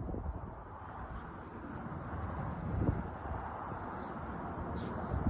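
Insects chirping in a steady, high-pitched pulsing rhythm, about five pulses a second, over a low background rush.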